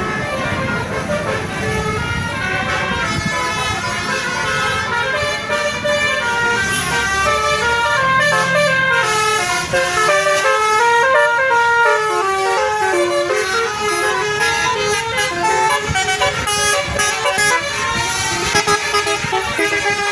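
Bus telolet horn, a multi-trumpet Basuri musical air horn, playing a tune: a continuous run of loud, clear notes stepping up and down in pitch.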